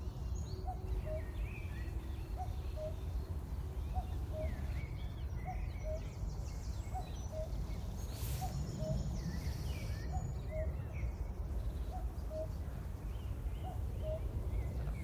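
Common cuckoo calling its two-note falling 'cuck-oo', repeated about every one and a half seconds. Other small birds sing higher up, over a steady low rumble.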